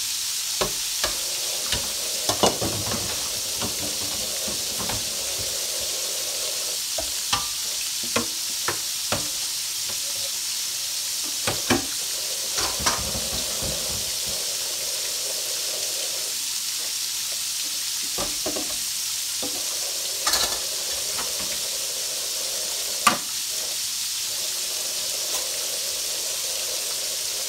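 Breaded chicken gizzards deep-frying in a skillet of hot oil: a steady sizzle with scattered sharp crackles and pops, the loudest about 23 seconds in.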